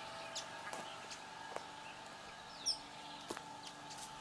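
Birds calling outdoors: several short, high, falling chirps, the loudest about two and a half seconds in, over faint steady background sound. A couple of light clicks are heard as well.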